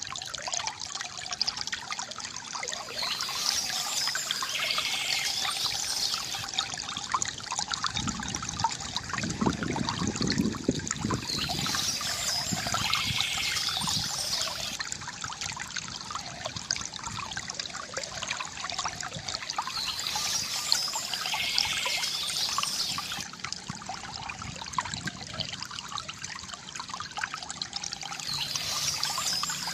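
Water trickling and pouring steadily from a bamboo fountain spout, with a fuller gush about eight seconds in. High bird chirping recurs about every eight seconds.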